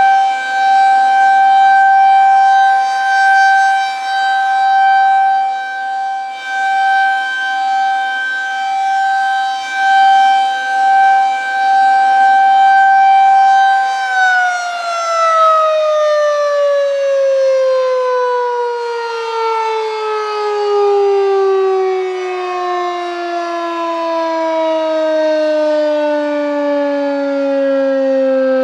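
Federal Signal 2001-SRN single-tone rotating electromechanical siren sounding its full-alert steady tone, swelling and fading in loudness. About halfway through the tone starts to wind down, falling smoothly and steadily in pitch as the rotor coasts to a stop at the end of the test cycle.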